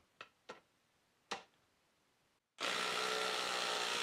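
DeWalt DCF845 cordless impact driver running steadily in reverse, backing a long timber screw out of a wooden post; it starts about two and a half seconds in, after a few light clicks.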